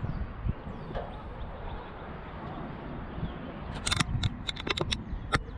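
Wind buffeting the microphone as a low rumble, with a quick run of about a dozen sharp clicks near the end.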